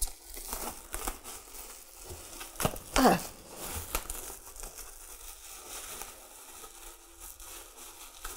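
Bubble wrap crinkling and rustling as it is pulled off a metal wire stand, in many small crackles. A brief falling tone sounds about three seconds in.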